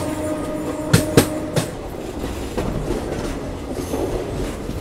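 Passenger train coach running on the line, heard from on board: a steady rumble of the wheels on the rails, with a quick pair of clacks over a rail joint about a second in and another just after.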